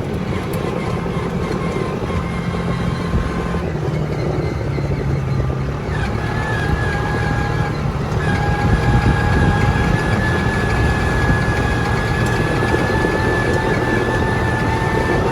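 ATV engine running steadily while being driven. From about six seconds in, a steady high whine joins the engine.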